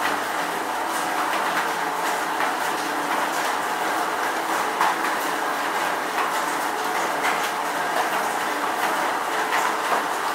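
Steady rain falling, a dense even hiss with individual drops ticking sharply through it.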